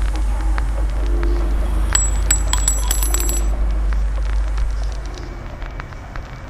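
Steady low city traffic rumble with scattered clicks. About two seconds in, a small metal bell is rung rapidly for about a second and a half. The rumble falls away about five seconds in.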